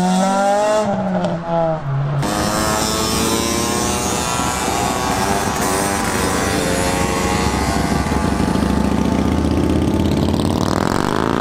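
Motorcycle, scooter and car engines running as the vehicles ride past in a line, with one engine revving up near the end.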